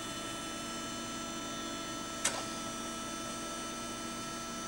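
Steady electrical hum made up of several fixed tones, with a single sharp click a little past two seconds in.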